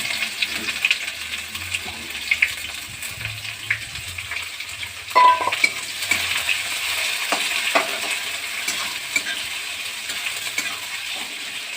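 Chopped onions sizzling in hot mustard oil in a kadai, stirred with clicks and scrapes against the pan. About five seconds in there is one louder metallic knock with a brief ring.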